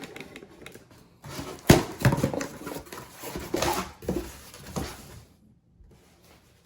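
Packaging and a plastic grinder hopper being handled: irregular rustling and clatter with a sharp knock about two seconds in, stopping about five seconds in.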